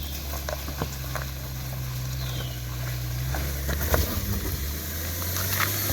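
Subaru Outback's boxer engine running with a steady low hum, its pitch stepping up and down a few times, with scattered light clicks and knocks.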